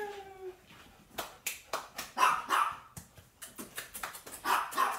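Golden retriever whining, a falling tone that fades about half a second in, then several short barks with sharp clicks in between.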